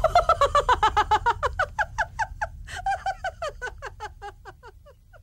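Electronic sound effect: a quick run of short blips, each sliding downward in pitch, about seven a second at first, then slowing and fading away, over a low hum that dies out near the end.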